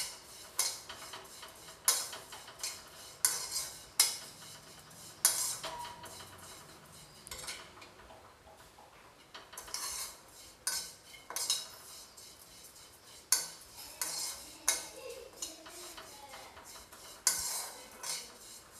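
Metal spatula scraping and clinking against a black kadhai as vermicelli is stirred and roasted in ghee on a medium-to-low flame until brown. Irregular scrapes and knocks come every second or so, with a pause of about two seconds near the middle.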